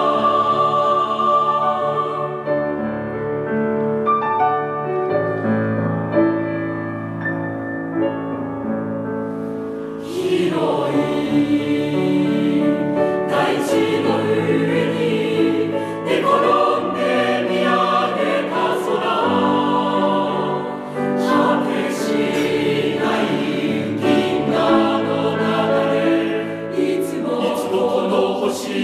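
Choral music: a choir singing slow, held chords. It is softer and thinner for several seconds, then swells fuller and louder about ten seconds in.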